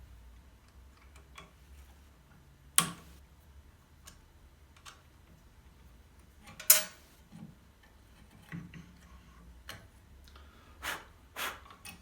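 Scattered light taps and clicks over a faint low hum, with two sharp knocks, one about three seconds in and one near seven seconds, and two softer knocks near the end.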